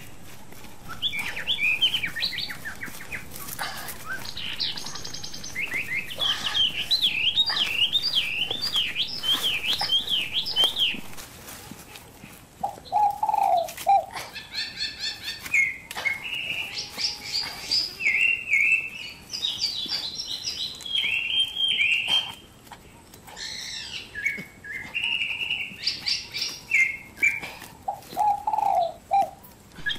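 Several wild birds calling: runs of quick, wavering high chirps, with a short lower call about a third of the way in and another near the end.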